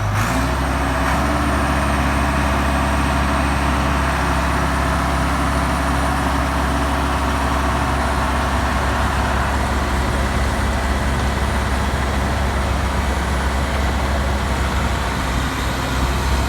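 Heavy diesel engines of a farm tractor and a Mack concrete truck running hard under load as the tractor tows the stuck truck out. The drone is steady and loud, with a faint high whine above it.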